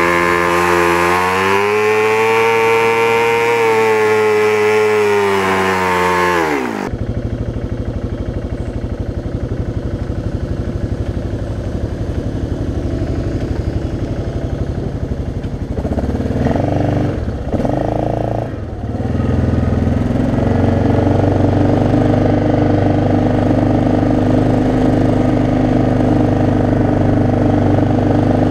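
Yamaha Grizzly 600 ATV's single-cylinder four-stroke engine, running at high revs and then dropping off sharply about seven seconds in to a lower, steady run. It gives a couple of quick revs a little past halfway, then runs on steadily. Its note is one the rider says sounds like a two-stroke.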